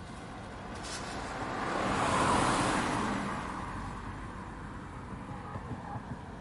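A car passing by: its tyre and engine noise swells to a peak a little over two seconds in, then fades away.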